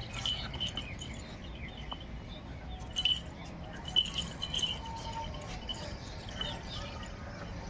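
Belgian Malinois tugging and biting at a rope tied to a concrete post: scattered clicks and clinks from its harness hardware and the rope, with the sharpest knock about four seconds in.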